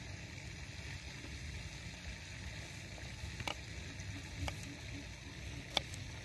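Steady low rumble of outdoor background noise, with three light clicks or knocks about a second apart in the second half, the last the sharpest.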